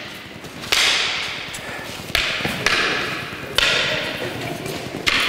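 Wooden hurleys clacking together as swings are blocked in a frontal block drill: four sharp cracks roughly a second and a half apart, each echoing through the hall.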